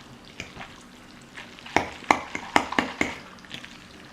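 Wet instant noodles being stirred to mix in the spicy sauce, a utensil clacking against the container five or six times in quick succession starting about two seconds in.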